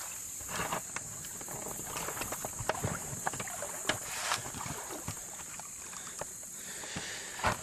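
Handheld camera being picked up and carried: irregular knocks, bumps and rustles of handling on the microphone, over a steady high hiss.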